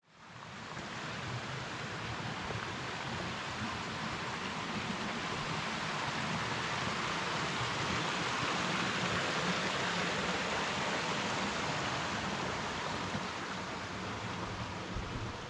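Steady rushing of a mountain stream, an even hiss of flowing water that fades in over the first second and fades out at the end.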